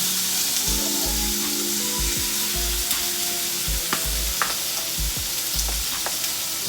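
Food frying in hot oil in a pan, a steady sizzle, with a few sharp clicks of a utensil stirring against the pan.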